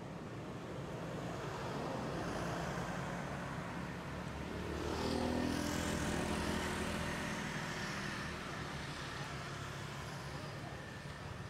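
Road traffic: a motor vehicle drives past, its engine growing louder to a peak about five seconds in and then fading away over a steady low rumble.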